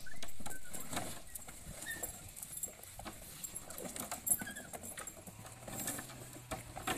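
An elephant playing with old rubber tyres hung from a wooden frame, pushing and pulling them with her trunk: a run of scattered knocks, scuffs and rustles, the sharpest a little past four seconds in.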